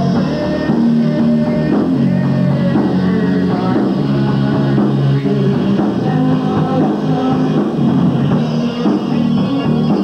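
Rock band playing live, loud and without a break, with drum kit.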